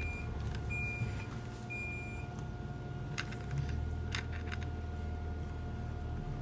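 Short high electronic beeps about once a second, stopping about two seconds in, over a steady high whine and low hum from the induction heating equipment, with a few light clicks later on.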